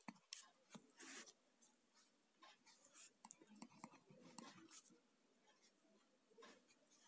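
Faint scratching of a pen writing on paper, in many short strokes.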